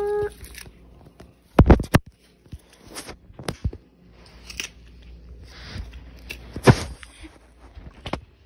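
Handling noise: scattered knocks and clicks with rustling between them. The loudest are a pair of sharp knocks about a second and a half in and another near seven seconds.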